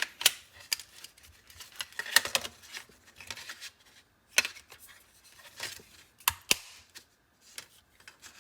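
Irregular sharp plastic clicks and taps as a battery video doorbell and its angled plastic mounting bracket are handled and clipped together.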